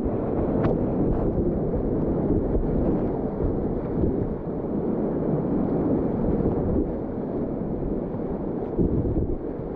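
Steady rushing roar of whitewater rapids, with a few faint clicks about half a second in.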